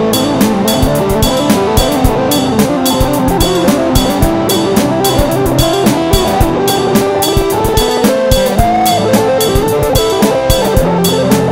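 Background music with a steady drum beat of about four hits a second under sustained pitched instrument parts.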